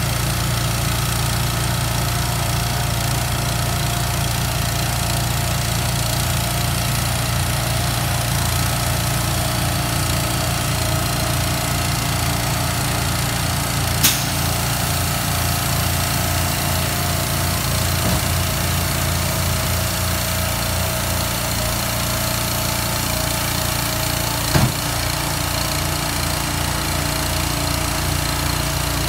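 Small gas engine powering a trailer's hydraulic container lift, running steadily with a fast pulsing beat while the lift handles a portable storage container. Two sharp clanks stand out, about 14 and 25 seconds in.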